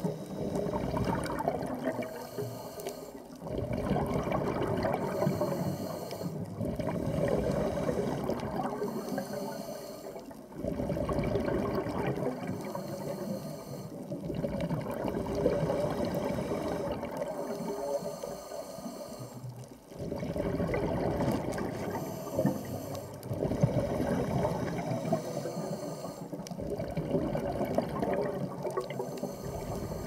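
Underwater water noise with bubbling and gurgling. It swells and fades in waves every few seconds.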